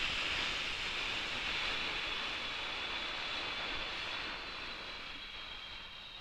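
Breath-out sound effect for the exhale phase of 4-7-8 breathing: a steady, breathy hiss that starts suddenly and slowly fades.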